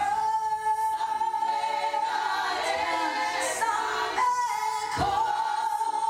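South African gospel choir singing, a high voice holding one long note over the lower voices. The note lifts briefly about four seconds in and is taken up again about five seconds in.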